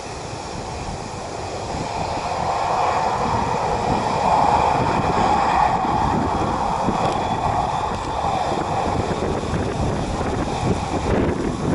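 Jet engines of a Boeing 737-800 (CFM56-7B turbofans) running, a roar that swells to its loudest about four seconds in and holds, with steady high-pitched whine tones over it. Wind buffets the microphone throughout.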